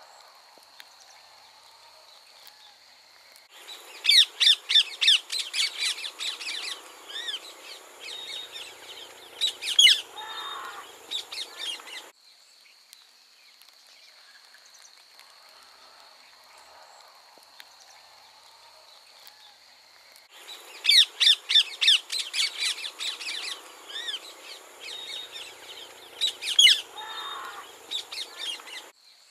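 Rose-ringed parakeets giving rapid, shrill squawking calls in two bursts of about eight seconds each, the first a few seconds in and the second about twenty seconds in. Between the bursts a steady high-pitched insect drone carries on.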